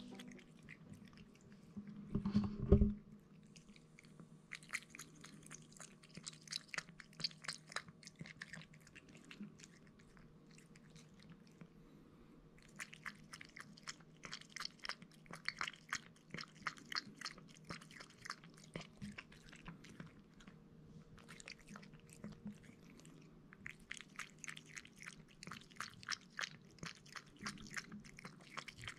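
A Somali cat lapping milk from a bowl: quick, wet tongue clicks in runs of several seconds with short breaks between them. A brief louder thump comes about two seconds in.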